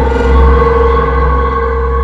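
Horror sound effect: an eerie drone of steady held tones over a deep rumble, easing off slightly in the second half.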